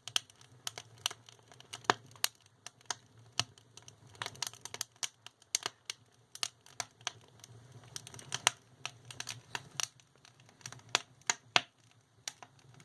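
Wood fire crackling in the firebox of a double shoebox wood stove: irregular sharp snaps and pops, several a second.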